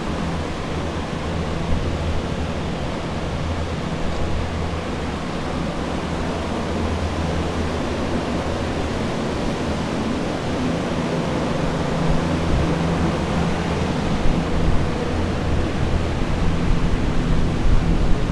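Steady whooshing hum of water-damage drying equipment, axial air movers and dehumidifiers, running to dry out a flooded building, with a low hum underneath. A few low bumps come through near the end.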